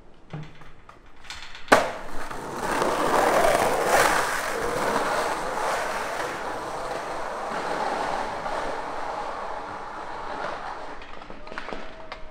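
Skateboard rolling fast down a steep, rough street. A sharp clack comes about two seconds in, as the board meets the pavement. A steady rolling rumble of the wheels follows and grows gradually quieter.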